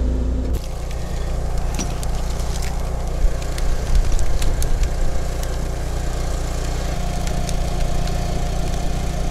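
Wood campfire burning in a snow pit, its split logs giving off scattered sharp crackles and snaps over a steady low rumble.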